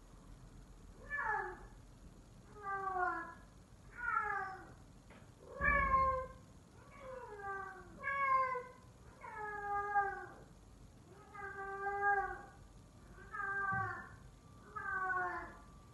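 F4 Savannah cat giving a long series of loud, lion-like calls, about ten of them, each falling in pitch, roughly one every second and a half.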